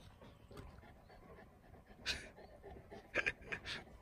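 A large black dog panting faintly: one breathy pant about two seconds in, then three quick pants near the end.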